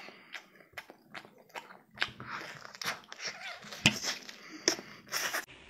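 Close-up chewing and lip-smacking of a mouthful of tiger-skin pork (braised pork with its skin), a run of irregular wet smacks and clicks with a few louder ones in the second half.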